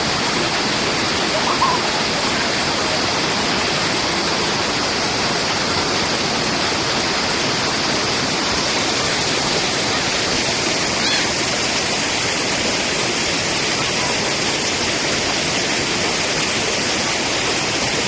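Waterfall pouring over rocks into a pool: a steady, unbroken rush of falling water.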